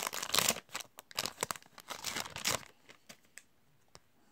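Plastic wrapper of a Panini Prizm basketball card pack crinkling as it is torn open, busy and crackly for about two and a half seconds. After that only a few faint clicks as the cards are handled.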